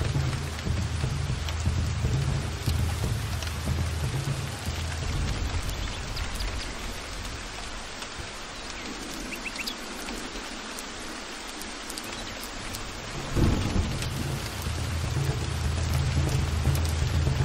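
Heavy rain falling steadily with a constant hiss, over rolling thunder. The deep thunder rumble fades out partway through, then a sudden thunderclap about thirteen seconds in brings it rumbling back.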